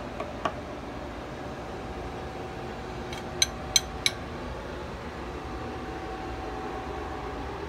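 Glass rods clinking three times about three and a half to four seconds in, short bright ringing knocks, after a few light taps at the start. Under it runs a steady fan-like hum with a faint steady tone.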